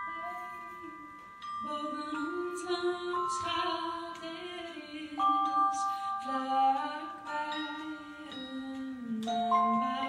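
A woman singing slow, low phrases over ringing, bell-like percussion notes that hold and overlap. Her voice breaks off briefly about a second in, then resumes.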